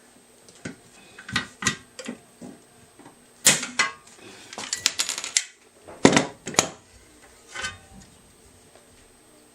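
Steel fan blades and small metal parts clinking and knocking together as they are handled, in irregular sharp clicks with a brief ring. There is a quick clatter of small clicks near the middle, and the loudest knocks come around six seconds in.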